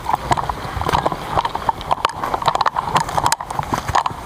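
Footsteps through woodland undergrowth with gear and rifle jostling, a dense string of irregular clicks and knocks.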